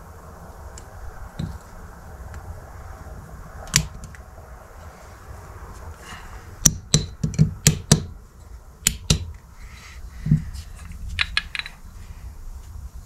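Steel transfer-case parts clinking as a splined output shaft and sprocket are handled and fitted together by hand: a single sharp click about four seconds in, a quick run of about six clinks around the middle, then a few more scattered clicks near the end, over a low steady hum.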